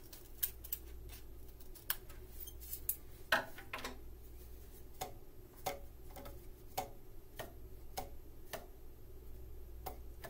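Scissors snipping a cardboard paper-towel tube, then from about five seconds in, hollow cardboard tubes tapped in a steady beat, about one tap every half second or so. The tubes are being sounded to compare pitch, and the freshly trimmed, shorter tube sounds higher.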